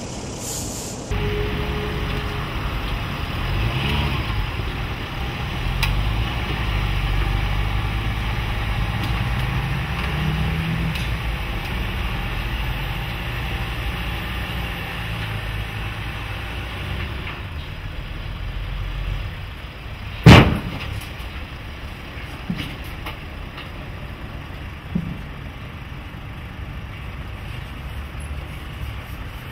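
Mercedes GLE SUV crawling over steel off-road ramps, its engine running low and steady. About two-thirds of the way through there is one loud clank from the metal ramps, followed by a few lighter knocks.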